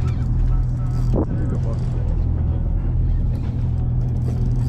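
Charter fishing boat's engine running steadily, a constant low drone, with brief bits of voices over it.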